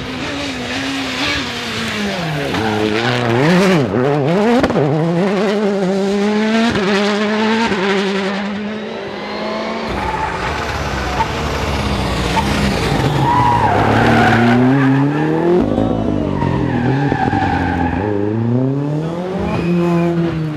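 Hyundai i20 WRC rally car's turbocharged four-cylinder engine revving hard, its pitch dropping and climbing again and again through quick downshifts and upshifts as it brakes and accelerates. About halfway through, it gives way to a second rally car, a Ford Fiesta, whose engine climbs steeply as it accelerates, drops back, and climbs again.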